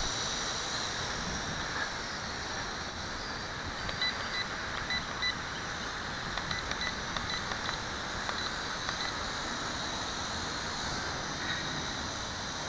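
WLtoys V262 quadcopter's motors and propellers whining steadily in flight, under a rushing of wind noise on the microphone. From about four seconds in, a run of short electronic beeps.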